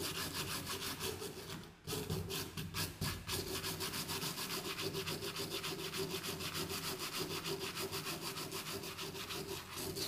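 A metal blade scraping back and forth over a kayak hull in quick, even strokes, about four or five a second, with a short pause about two seconds in. The blade is clearing old residue from around the holes before they are sanded and filled.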